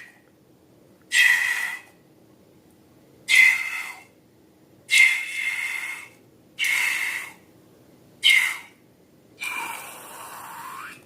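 Air squeezed out of a balloon's neck in six short hissing squeaks, one every second and a half to two seconds; the last one is longer and softer.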